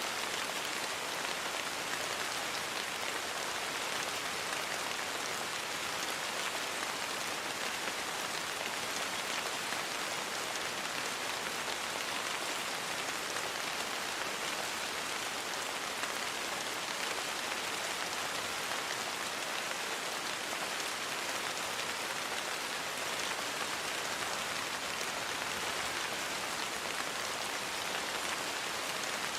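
Steady rain falling, a dense even patter of drops with no change in strength.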